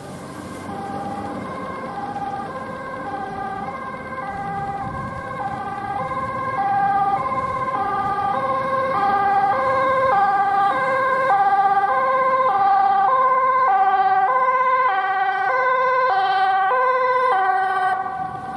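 Dutch ambulance's two-tone siren alternating high and low, about one high-low cycle a second, growing louder as the ambulance approaches and then holding loud until it falls away near the end. Low traffic noise runs beneath.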